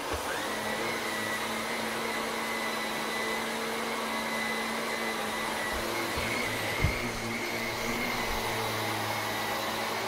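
Upright vacuum cleaner running, its motor whine rising to a steady pitch in the first half second, then running steadily with a low hum beneath. One thump about seven seconds in.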